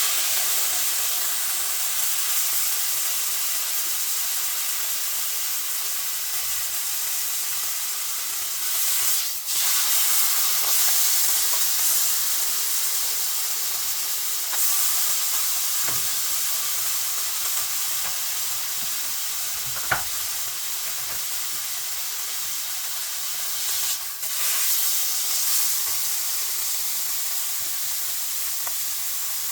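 Veal tenderloin steak sizzling steadily as it fries in a hot pan, with a brief dip in the sizzle twice and a sharp click about twenty seconds in.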